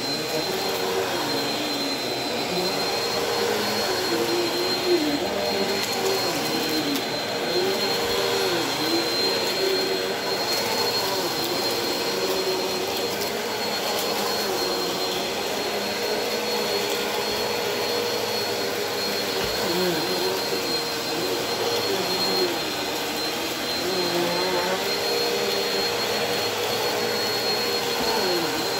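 Stick vacuum running steadily over a shag rug during a pre-vacuum, with a steady high whine and a lower tone that dips and recovers every few seconds.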